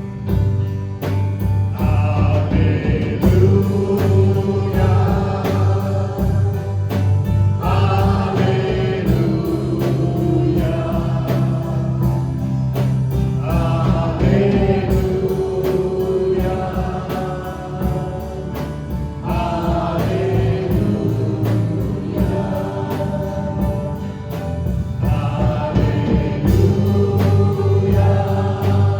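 Worship music: a congregation and band singing the word "Hallelujah" in long held phrases, a new phrase about every six seconds, over a steady beat.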